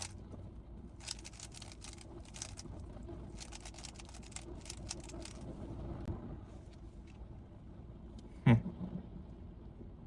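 Rubik's cube being turned quickly, a run of rapid plastic clicks that stops about six seconds in. About eight and a half seconds in there is a single loud thump.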